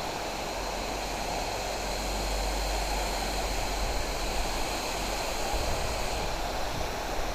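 Steady rushing noise of flowing water, with a low rumble underneath.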